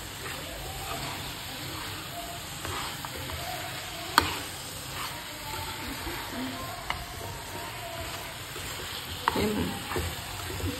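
Carrot halwa sizzling in a pan as it is stirred, a steady frying hiss with a few sharp clicks of the spoon against the pan, the loudest about four seconds in.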